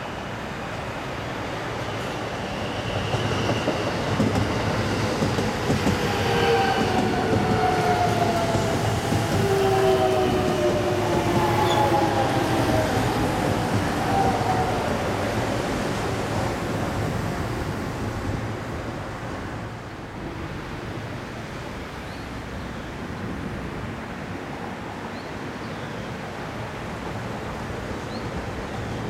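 A JR West 207 series DC electric commuter train passing close by: rumbling wheels on the rails with a high whine falling in pitch as it goes by. It is loudest from about four to fifteen seconds in, then fades.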